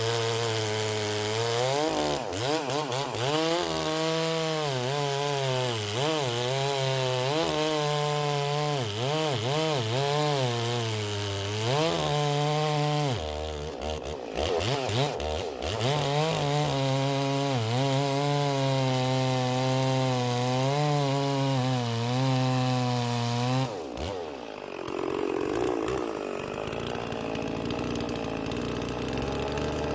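Chainsaw cutting into a hard oak log, the engine pitch rising and falling as the bar bites and pulls out. About 24 seconds in it drops to a steadier, lower idle.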